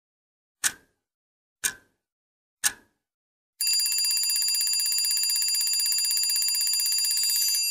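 Three sharp clicks about a second apart, then a steady, high, fluttering ring from about three and a half seconds in, like an old telephone bell: a sound effect at the head of a recorded song.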